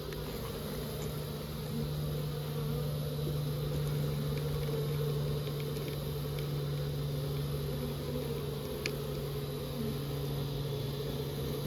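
Honeybees from an opened colony buzzing in a steady, even hum.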